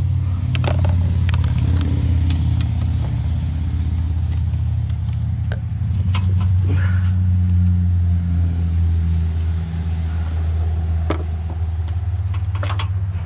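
2015 Jeep Patriot's 2.4-litre Dual VVT four-cylinder engine running steadily with its electronic throttle body unplugged and the throttle plate propped partly open. A few light clicks of a screwdriver working near the engine sound over it.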